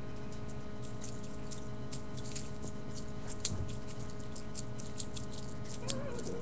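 Kitten's toy rattling as it is batted about: irregular light clicks and jingles, several a second, over a steady hum.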